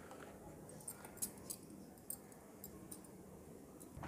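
Faint handling sounds from hands working thread wound on a small box: a scattered handful of light ticks over quiet room tone.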